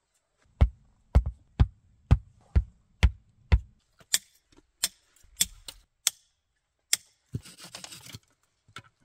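A series of sharp knocks, about two a second, each with a low thud, then five or so lighter, sharper knocks and a brief rustling near the end.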